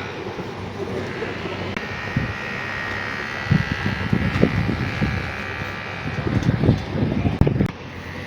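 Outdoor city noise with a steady high whine, and low gusts buffeting the microphone through the second half.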